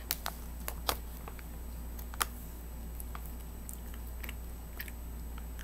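Cotton candy being chewed: scattered small wet mouth clicks and smacks, the sharpest about one and two seconds in.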